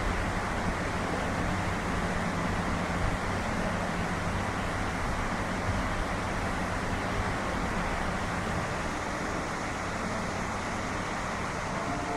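Steady rumble and hiss of machinery in an empty underground metro station, with a low hum beneath it. A few faint tones begin right at the end.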